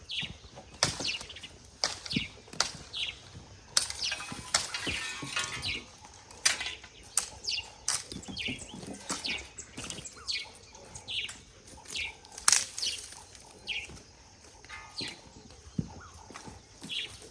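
A digging tool striking and scraping into dry grass and soil, repeated irregular chops about one or two a second, with a longer scraping stretch about four seconds in.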